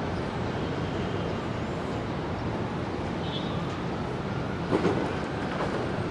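Metro-North commuter train running at the station: a steady rumble, with a faint rising whine in the second half and a sharp clack about five seconds in.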